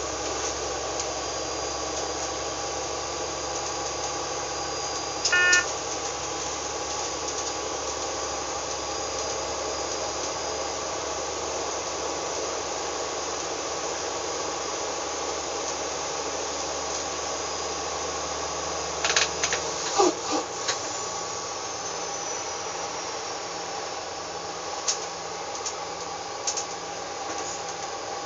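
Diesel railcar running along the track, heard from inside the cab: a steady engine and rolling drone. A short loud tone sounds about five seconds in, and a cluster of sharp knocks comes about twenty seconds in as the low engine hum drops away, followed by a few lighter clicks near the end.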